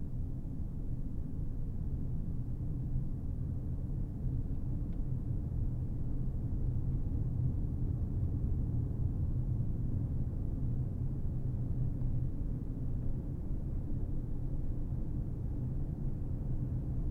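Steady low rumble of a car driving, road and engine noise with little above it.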